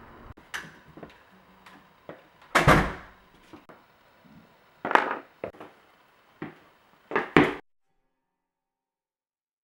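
A heavy door thunk about two and a half seconds in, then several sharper knocks and thuds, two of them in quick succession near the end, before everything goes silent.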